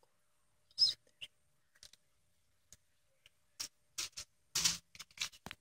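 Scattered short clicks and brief rustles of handling, one sharp one about a second in and a quick cluster of them near the end.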